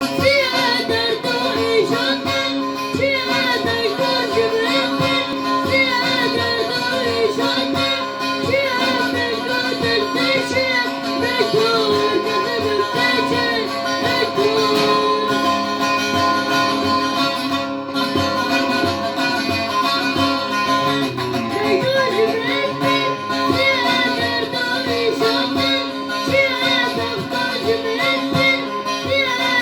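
A solo voice singing a song with a winding, ornamented melody over a plucked string instrument and a steady held drone note.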